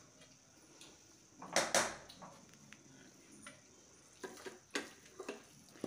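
Stainless-steel utensils clinking and scraping as a spoon works thick coconut burfi mixture out of a steel bowl onto a greased steel plate. There is one louder clatter about a second and a half in, then a few short taps and clinks near the end.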